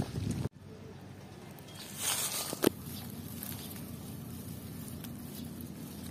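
Rustling and footstep-like handling noise from someone moving through leafy vines. About two seconds in there is a brief louder rustle that ends in one sharp click.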